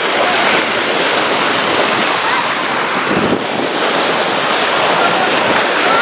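Steady rush of wind on the microphone mixed with small sea waves washing onto a sandy beach.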